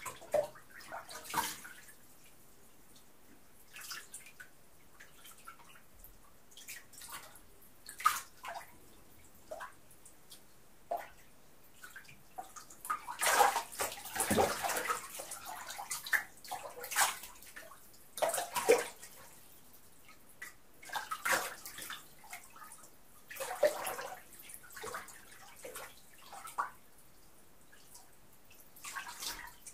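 Water splashing and sloshing in a filled bathtub as a person moves about in it: scattered splashes with quiet gaps, coming thick and fast in a busy stretch around the middle.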